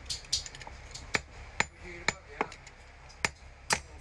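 Sharp metal-on-metal knocks and clinks of steel lock plates and parts being handled and set down on a steel bench block, about eight at irregular intervals, each with a brief ring.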